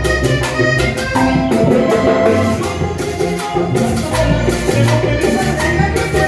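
Live band playing a Latin tropical dance tune: bass guitar and drums with cymbals, a metal güira scraped in rhythm, and accordion.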